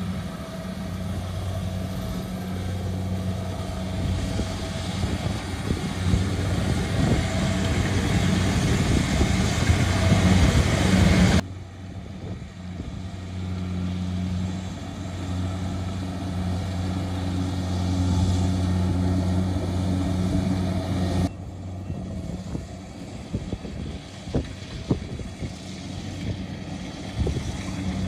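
Kubota DC70G crawler combine harvester running under load while cutting and threshing rice: a steady diesel engine drone with the rattle of the cutter and threshing machinery. It is loudest in the close view near the start, and its loudness shifts abruptly twice as the shots change.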